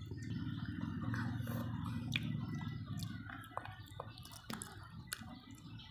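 A small child eating noodles, chewing close to the microphone, with scattered light clicks of bamboo chopsticks against a glass bowl over a low steady hum.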